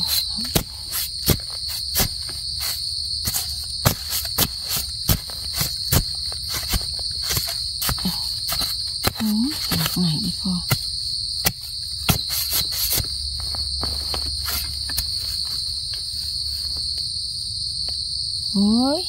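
A steady high-pitched drone of insects calling, with many irregular sharp clicks and crackles over it, and a short rising sweep near the middle and again near the end.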